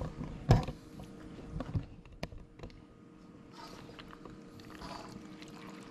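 Spatula knocking and scraping in a wok of creamy pasta: one louder thump about half a second in, a few light taps after it, and soft scrapes later, over a steady low hum.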